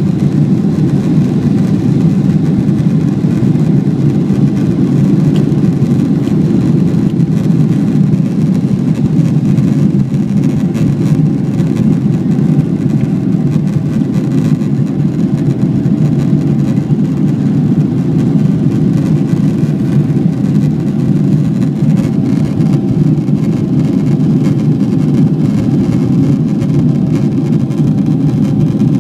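Boeing 777-200's twin Rolls-Royce Trent turbofan engines at takeoff thrust, heard inside the passenger cabin: a loud, steady, deep engine noise through the end of the takeoff roll, liftoff and initial climb. A faint steady hum joins about halfway through.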